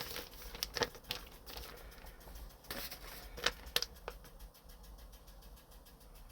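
Packaging being handled and rummaged through: scattered light clicks and soft rustles, the sharpest a pair of clicks about three and a half seconds in.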